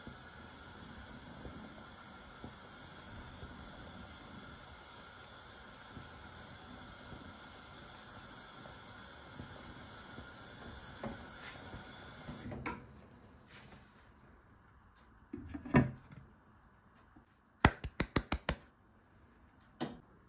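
Milk simmering in a steel pan with a steady hiss and a few light scrapes of a spatula. About twelve seconds in the hiss drops away. A loud knock follows, then a quick run of sharp clicks and one more click near the end.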